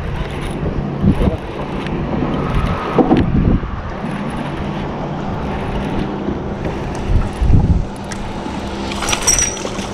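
Wind buffeting the microphone and water lapping at a fishing boat's hull, over a faint steady low hum, with scattered knocks. A short high-pitched chirp comes near the end.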